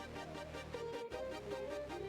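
Quiet electronic background music with a steady beat.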